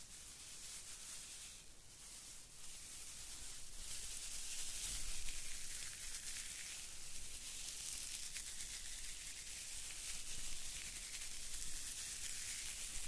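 Tinsel garland rustling as it is rubbed against microphones, a fine high rustle that grows louder about four seconds in.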